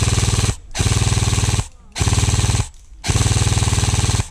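Airsoft gun firing on full auto, four quick bursts of rapid, evenly spaced shots with short pauses between them, the longest near the end.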